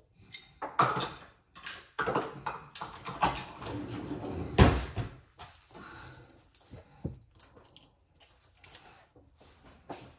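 Kitchen items being handled and set down on the counter: scattered clicks, knocks and clatter, loudest a little under five seconds in.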